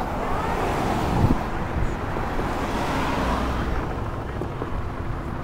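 Road traffic noise from passing cars. The tyre noise swells through the middle and then fades away.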